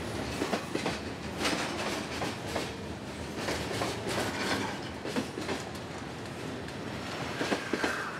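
Freight train cars rolling past at low speed, their steel wheels clacking and knocking irregularly over the rail joints under a steady rumble, with a faint wheel squeal near the end.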